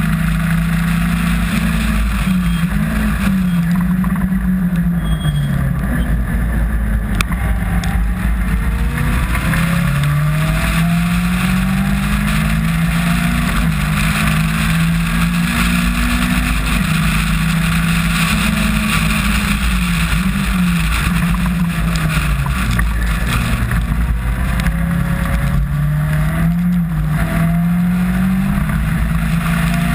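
Caterham R300 Superlight's four-cylinder engine under racing load, its pitch climbing through the gears and dropping back again and again, with heavy wind rumble from the open cockpit.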